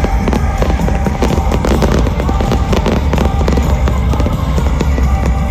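Fireworks banging and crackling in rapid succession over loud music played for the display.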